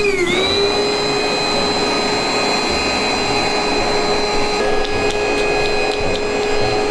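Built-in electric air pump of an inflatable twin air mattress running as it inflates the bed: a steady, loud motor whine that dips briefly in pitch right at the start, then holds level.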